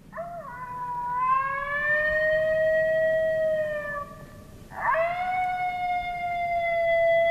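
Recorded coyote howls played through an electronic predator call. One long howl rises, holds and drops off after about four seconds, then a second howl starts about five seconds in.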